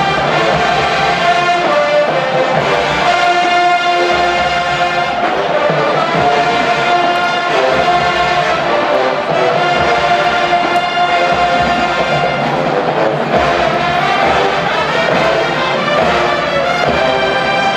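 College marching band playing, its brass section leading with loud held chords that change every second or two.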